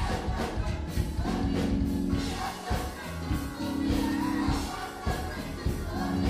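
Live gospel music: a band with drums and bass under held chords that change every second or so, with voices singing.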